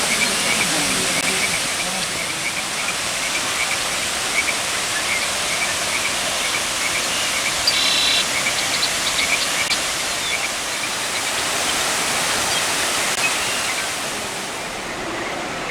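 Steady rush of the Cheonjeyeon Waterfall's second cascade falling into its pool. Through it runs a faint, regular chirping about twice a second, and a brief higher call sounds about halfway through.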